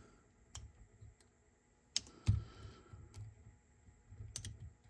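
Hands handling a Nakamichi BX-300 cassette deck and its head mechanism: about half a dozen small, irregularly spaced clicks and knocks with low bumps, the heaviest knock a little past two seconds in.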